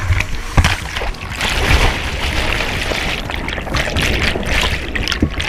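Whitewater rushing and splashing hard against a kayak-mounted camera as the kayak rolls over and the camera goes under. The turbulent water is loud and continuous, broken by sharp splashes and bubbling.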